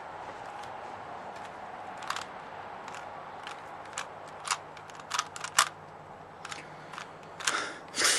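Plastic Rubik's Cube being twisted by hand: a string of short, irregular clicks and clacks, more frequent in the second half.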